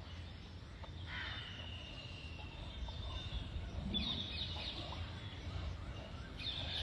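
Faint bird calls, thin high-pitched notes that come and go, over a low steady hum.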